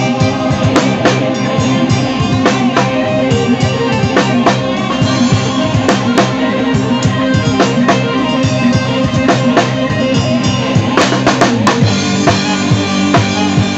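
Live dangdut band playing, with the drum kit up front: steady kick drum, snare and rimshot strokes over sustained bass and keyboard notes. A quick run of drum hits comes about eleven seconds in.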